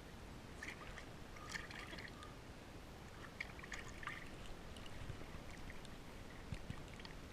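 Faint splashing and trickling water, with a few short, high-pitched sounds.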